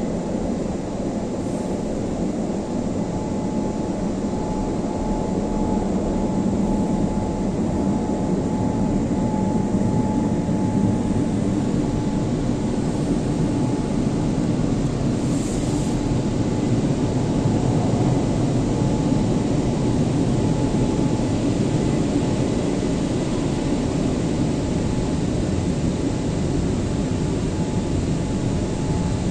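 Rotating brushes of an automatic gantry car wash scrubbing over the car body, heard muffled from inside the car cabin, with the wash machinery running steadily. A faint steady whine runs through much of it.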